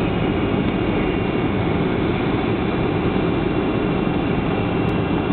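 Steady cabin noise of a Boeing 737-800 on approach: its CFM56 turbofan engines and the rush of air past the fuselage, with a faint high steady whine on top.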